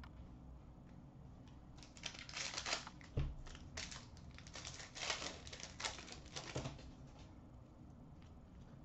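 Foil wrapper of a hockey card pack crinkling and tearing as it is opened, with scratchy rustles of cards being handled. A run of crinkles lies between about two and seven seconds in, with a soft thump about three seconds in.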